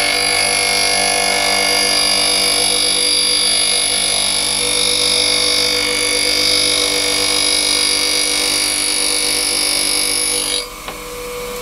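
Bench grinder with a diamond wheel grinding the flute of a milling cutter: a steady, loud, high hissing grind over the motor's hum. The grinding stops abruptly about ten and a half seconds in as the cutter comes off the wheel, and the grinder motor keeps running.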